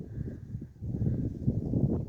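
Low, irregular rumbling of wind buffeting a phone's microphone outdoors, growing louder about a second in.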